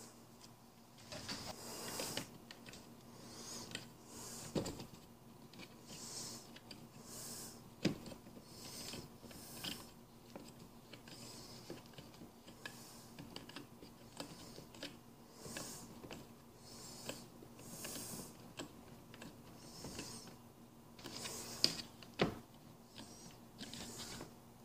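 Faint handling noise from fitting a snow blower's handle by hand: scattered rustling and scraping of plastic parts as a bolt and knob go on, with a few sharp clicks and knocks.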